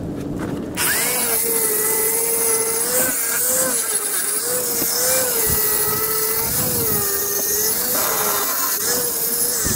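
Angle grinder running and grinding a steel truck frame rail, starting up about a second in. Its motor whine sags and recovers repeatedly as the disc is pressed into the metal, over a steady hiss of grinding.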